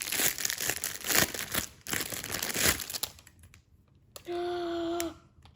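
Packaging crinkling and crackling for about three seconds as a fidget toy is unwrapped, then a brief steady hum near the end.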